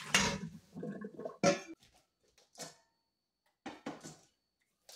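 Boiled greens and their cooking water poured from a steel pot into a perforated metal strainer in a steel sink, the pour ending just after the start, then a few short scattered clunks of metal handling.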